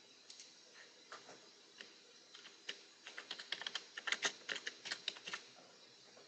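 Computer keyboard typing: a few single clicks, then a quick run of keystrokes lasting about three seconds as a short name is typed in.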